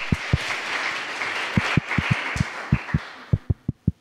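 Audience applauding at the end of a talk, dying away over the last second, with a few low thumps near the end.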